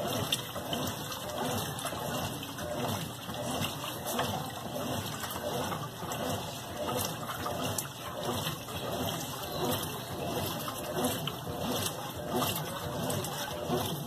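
Consul CWB12 top-loading washing machine agitating a load of clothes: water sloshing and swishing in the tub, swelling and easing about once a second as the agitator swings back and forth.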